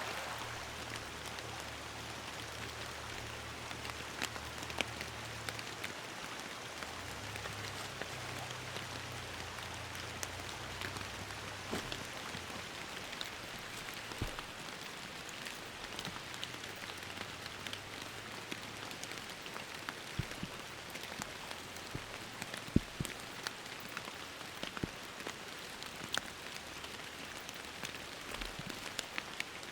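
Steady rain falling, with single heavier drops striking close by now and then.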